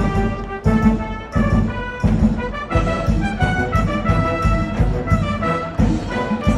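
School brass band cheering music: brass playing a held, marching tune over a steady drum beat of about three strokes every two seconds.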